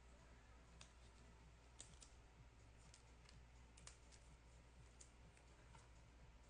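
Near silence with a few faint, scattered clicks and taps of trading cards being handled.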